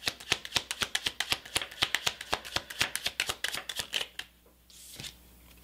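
A deck of tarot cards shuffled in the hands: a fast, even run of card-edge flicks that stops about four seconds in.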